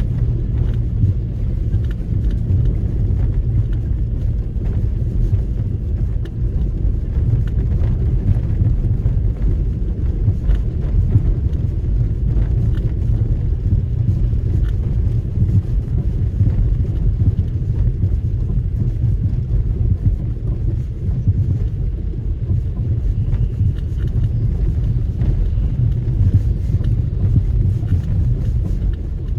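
Nissan X-Trail T30's 2.0-litre petrol four-cylinder engine and tyres making a steady low rumble while driving over rough off-road ground, with occasional faint clicks and knocks.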